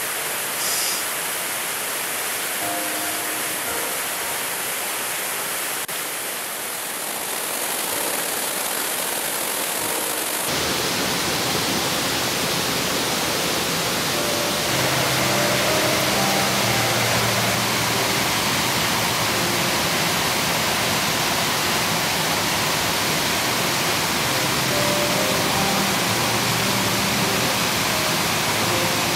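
Creek water rushing over boulders in a cascade, a steady noise. Faint music of short held notes sounds underneath, and the water sound changes abruptly about ten seconds in.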